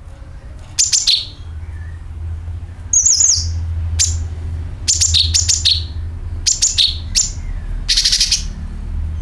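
Cucak kinoi calling: short bursts of fast, high chattering notes, with one brief rising warble, repeated roughly every second over a steady low hum.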